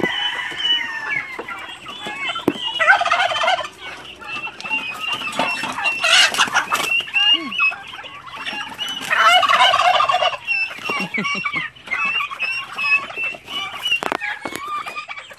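Turkeys gobbling in several loud, rattling bursts, with chickens clucking and calling throughout as they crowd around feed.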